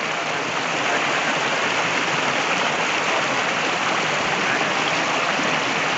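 Steady rush of water from a waterfall and its stream.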